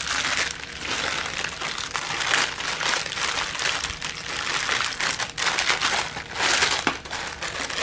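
Thin clear plastic bags crinkling and rustling without pause as small packets of diamond painting drills are handled and slipped back into their plastic pack.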